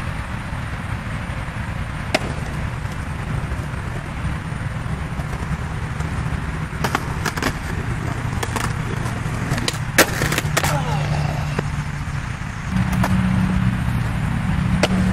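Skateboard wheels rolling on concrete with a steady low rumble, broken by sharp clacks of the board striking the ground, the loudest about ten seconds in. The rumble grows louder near the end.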